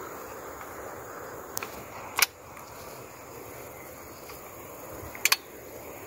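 Sharp metallic clicks from the action of a handmade side-by-side 20-gauge shotgun being handled and readied to fire: a couple of small clicks, one loud snap about two seconds in, and a quick double click near the end, over steady wind and grass noise.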